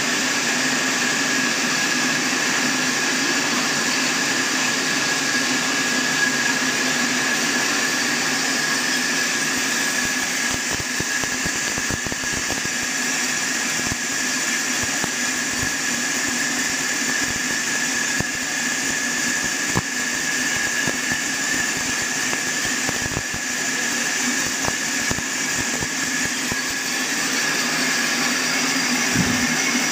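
Log band sawmill running steadily with a continuous high whine, and scattered light knocks in the second half.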